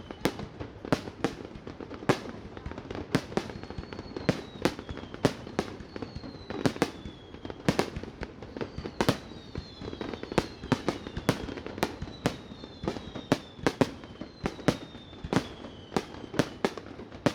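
Fireworks display: a fast, irregular run of sharp bangs from bursting shells, several a second at times, with repeated whistles falling in pitch between them.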